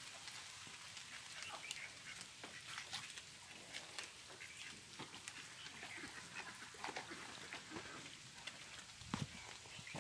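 Faint scattered crackling and rustling of dry fallen bamboo leaves and stems, trodden and brushed aside, with a louder crackle near the end.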